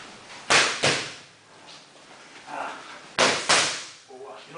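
Boxing gloves smacking into focus mitts in two quick one-two combinations, each a pair of sharp smacks about a third of a second apart, the second combination about three seconds in.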